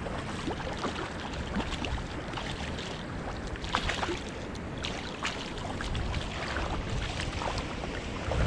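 River water running, with many small splashes and ticks scattered through it.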